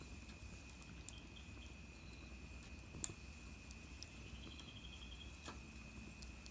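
Small wood fire in a tabletop fire pit crackling faintly, with a few sharp pops. A faint steady high tone runs underneath, and a brief rapid chirping trill comes a little past the middle.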